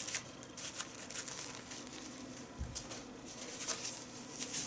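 Paper napkin being pulled from a stack and rubbed over the face, a scatter of soft rustles and crinkles, with one low thump about two and a half seconds in.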